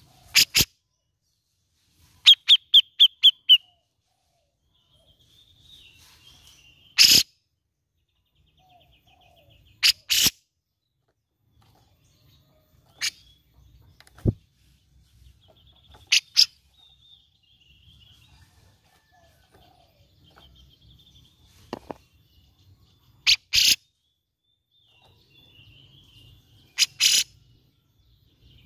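Cucak jenggot (grey-cheeked bulbul) giving short, sharp calls every few seconds, with a quick run of five notes near the start.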